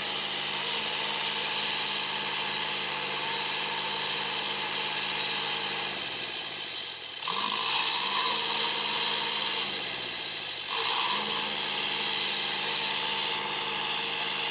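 A motor running hard with a strong high hiss over it. It slows and picks back up twice, about seven and about ten and a half seconds in.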